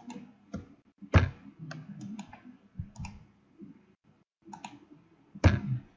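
Computer mouse clicking irregularly, about a dozen sharp clicks, with two louder ones about a second in and near the end.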